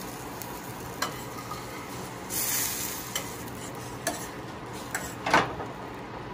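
Spoon knocking and scraping against a cooking pot over a steady sizzle of hot cooking, with a brief hiss about two and a half seconds in and a louder knock near the end.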